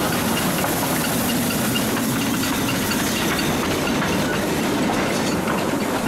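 C2-class narrow-gauge steam locomotive running slowly past at close range, with a steady hiss of steam and faint ticking from its running gear.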